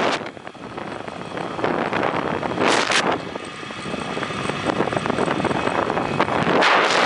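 Rushing wind buffeting the microphone on a fast zip-line ride, with two loud gusts, one about midway and one near the end.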